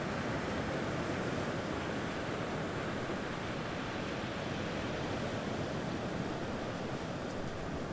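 Steady wash of sea surf breaking on the beach, with some wind.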